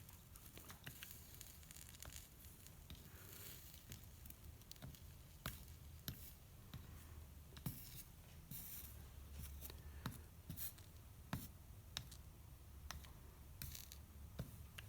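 Faint handling noises: scattered light clicks and scrapes, a few seconds apart, over a low steady hum.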